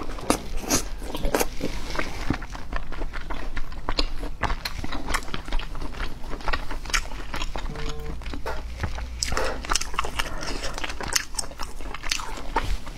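Close-miked chewing and biting of boiled pork belly: many short, sharp mouth clicks and smacks, irregular throughout.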